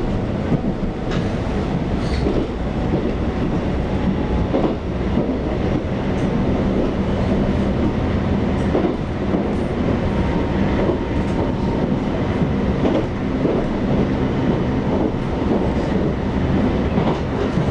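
Taiwan Railways EMU700 electric multiple unit running along the line, heard from inside the passenger car. It is a steady rumble of wheels on rail, with a low steady hum and scattered clicks from the track.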